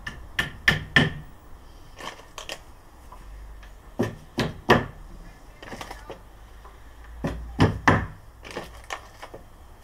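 Cloth-covered rubber hammer knocking the pegs and panels of a flat-pack wooden beehive into place: a series of knocks, mostly in quick groups of two or three.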